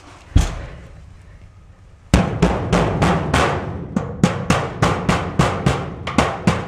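Hammer blows on the dented sheet-steel wall of a portable office container, struck from the inside to push the dent back out. One blow, then a quick run of about fifteen blows at about three a second, each ringing through the hollow metal box.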